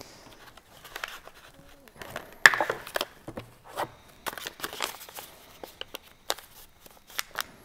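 Hands handling cardboard packaging and small parts: scattered rustles, clicks and light knocks, the loudest about two and a half seconds in.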